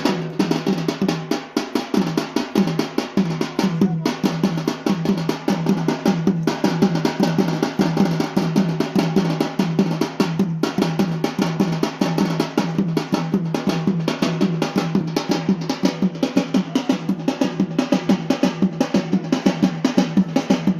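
Drums beating a fast, even rhythm for the Yemeni bara' dance, keeping on without a break.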